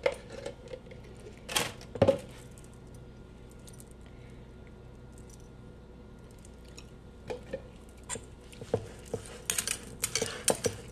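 Metal spoon and fork clinking and scraping against a stainless steel mixing bowl. There are a few sharp clinks in the first two seconds, then a quiet stretch. From about seven seconds in come scattered clicks as mayonnaise is scraped off a spoon with a fork, building to rapid clinks and scrapes as the salad is stirred near the end.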